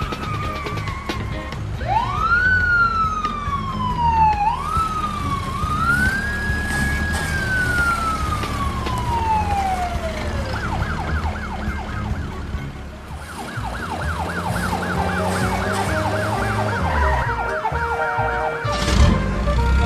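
Emergency vehicle siren: long wailing sweeps that rise and slowly fall three times, then a fast repeating yelp for the second half. A brief knock comes near the end.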